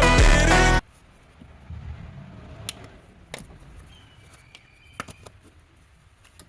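Background music that cuts off abruptly under a second in, followed by a few faint, sharp clicks over a low rumble.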